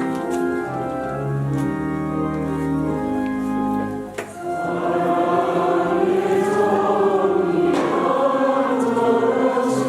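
Church organ playing a hymn with held chords and bass notes; about four seconds in, after a brief pause, a choir joins in singing over the organ.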